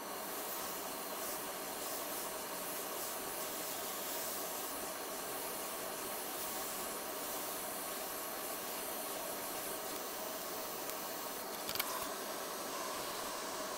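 Hot air rework station blowing a steady hiss of air, reflowing the solder joints of an SD card slot connector. A brief click sounds near the end.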